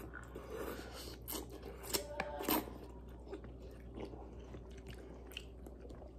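People slurping and chewing mouthfuls of noodles at close range, with many short sharp clicks and smacks; the loudest slurp comes about two and a half seconds in.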